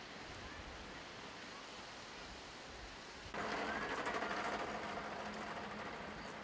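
Steady wash of sea and surf. About three seconds in it cuts to a louder seaside beach ambience with a steady low hum and faint distant voices.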